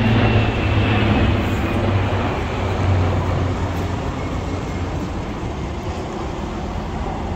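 Propeller aircraft flying low overhead in a flypast: a steady low engine drone that fades as they pass, while a faint high tone sinks slowly in pitch.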